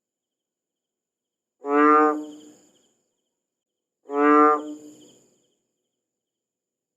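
A frog calling twice, each call a short pitched croak of about half a second, the two about two and a half seconds apart, with dead silence between.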